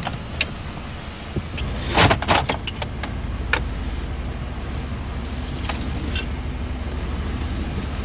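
Plastic trim pieces and their clips on a 2009 Ford F-150 center console clicking and snapping as they are pried and pulled loose around the gear shifter, loudest in a quick cluster of snaps about two seconds in. A steady low rumble runs underneath.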